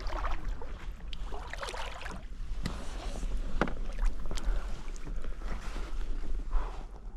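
Kayak paddle strokes: the blade dipping and splashing through the water and dripping, with a few sharp knocks of the paddle against the hull.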